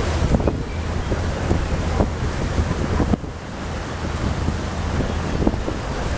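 Wind buffeting the microphone over open water, with a steady low rumble and the wash of waves; short gusty thumps come and go.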